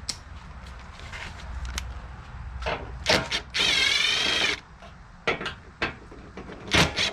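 Knocks and clicks of car body parts being handled while a headlight and its bracket are worked loose, with a second-long squeaky scraping midway.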